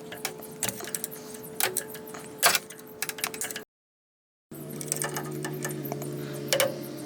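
Irregular light clicks and taps of hand tools on metal over a steady hum. The sound drops out completely for about a second midway, then the clicks resume over a lower hum.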